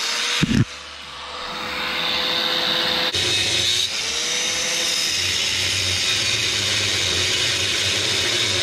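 Harbor Freight angle grinder with a cutting wheel cutting through a steel exhaust clamp. A brief knock about half a second in, then the wheel bites and a steady grinding builds and holds, its pitch sagging and recovering as the wheel is loaded.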